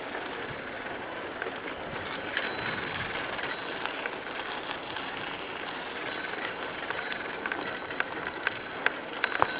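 Steady rushing noise with irregular clicks and crackles, more of them near the end, from a camera carried along a sandy forest track, with a bird calling faintly.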